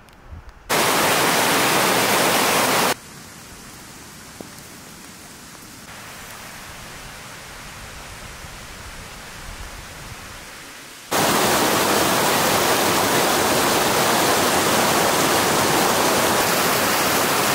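Mountain creek rushing over rocks: a loud, even rush of water from about two-thirds of the way in, after a quieter hiss. A similar loud rush sounds briefly near the start.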